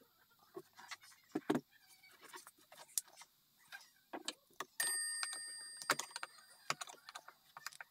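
Wooden clock case being tipped and handled, with scattered light knocks and clicks. About five seconds in, one of the Seth Thomas Sonora chime's bells is knocked and rings out once, fading over about two seconds.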